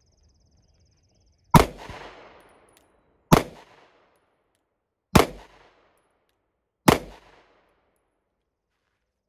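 Four single pistol shots from a 9mm Walther PDP F-Series, slow-fired roughly every two seconds, each followed by a short echo.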